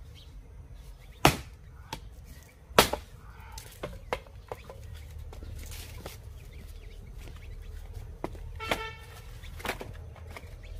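Axe chopping and splitting dry wooden planks: two sharp, loud strikes within the first three seconds, then lighter knocks and clatter as the split pieces are picked up and stacked.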